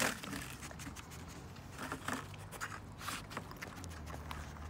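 Raccoon pawing at an empty clear plastic clamshell box on wooden deck boards: scattered light scrapes, clicks and rattles of the plastic. A low steady hum comes in near the end.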